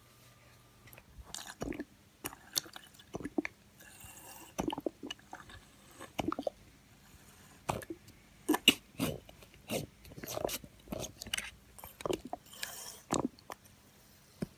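Small plastic squeeze bottle being squeezed over and over, with irregular squishy clicks and squelches as water is squirted into a toy snow-globe dome.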